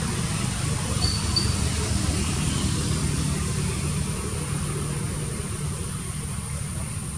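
Steady low hum of a running engine, with two short high chirps about a second in.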